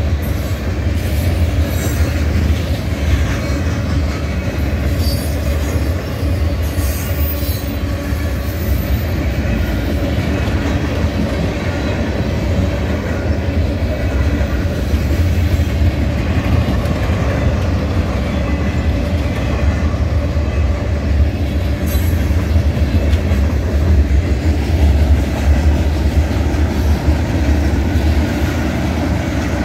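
Freight cars of a heavy mixed freight train, boxcars and covered hoppers, rolling past close by: the steady rumble of steel wheels on rail.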